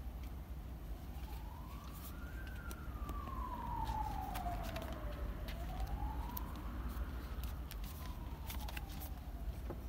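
A siren wailing, its pitch rising and falling in slow sweeps, twice over. Light clicks and scrapes of a cardboard box being handled sound over it.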